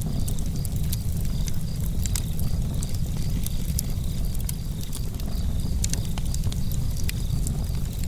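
Campfire burning: a steady low rumble with sharp crackles and pops scattered throughout, and a faint high pulsing tone repeating several times a second in the background.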